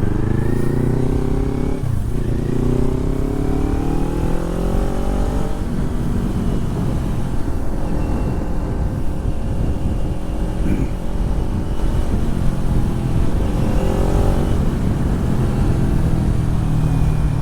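Kawasaki Ninja 400's 399 cc parallel-twin engine through a Yoshimura slip-on exhaust with the dB killer removed, pulling away under acceleration. The engine's pitch rises, drops at a gear change about two seconds in, and rises again. It then runs fairly steadily while cruising, with another short rise in revs near the end.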